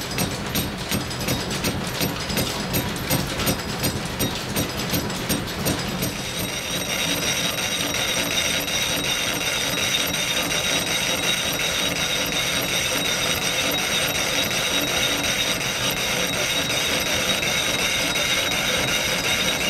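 Belt-driven lathe taking a slow facing cut with a carbide tool across a hard, weld-repaired metal part. A regular clicking, about three a second, runs for the first six seconds; then the cut settles into a steady grating hiss with a high whine over it.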